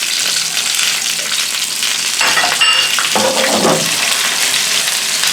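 Squid frying in hot olive oil in a large pan, with a steady sizzle. A brief clink and scrape comes about two seconds in.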